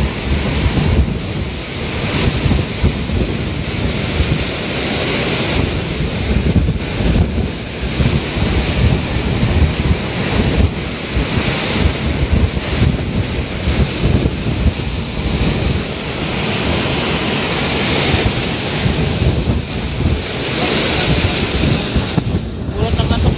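Typhoon wind blowing hard in gusts, buffeting the microphone in a loud, continuous storm noise.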